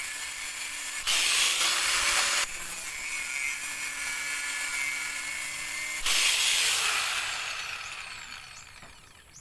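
Electric angle grinder with a cut-off disc running with a steady high whine, growing louder and harsher twice as the disc bites into the metal. It is then switched off and winds down, its pitch falling and fading near the end.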